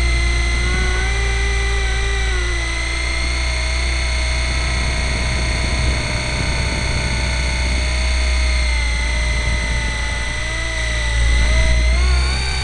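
Nine Eagles Kestrel 500 electric RC helicopter in flight, heard from its onboard camera: a steady high motor-and-gear whine over a strong low rumble. The pitch wavers slightly with throttle and rises near the end.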